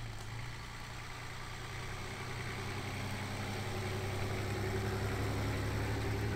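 Toyota Land Cruiser HJ47's 2H straight-six diesel, fitted with extractors, running steadily at low speed as the truck drives along a dirt track, growing gradually louder as it comes closer.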